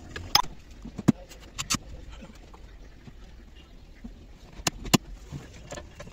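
Scattered sharp clicks and knocks as a car dashboard is refitted, several in the first two seconds and a close pair about five seconds in, over quieter handling noise.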